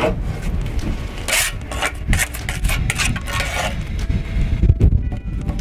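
Steel mason's trowel scraping and working mortar against stone: a series of short rasping strokes, the strongest about a second and a half in.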